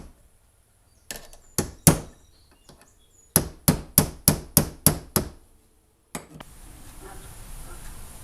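Hammer strikes: three separate blows, then a quick run of about seven, roughly three a second, while parts of the trolling motor are worked on. A steady faint hiss takes over about six seconds in.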